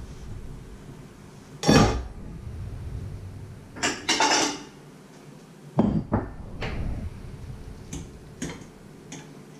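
Kitchen clatter of cookware and dishes being handled: a run of separate knocks and clinks as metal cookware and a china plate are set down and a spoon is worked, the loudest knock about two seconds in.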